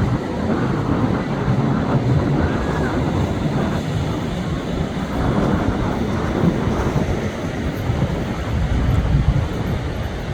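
Jet noise from a Lockheed Martin F-35's single Pratt & Whitney F135 turbofan in flight: a steady, deep rumble, loudest at the start and then easing a little.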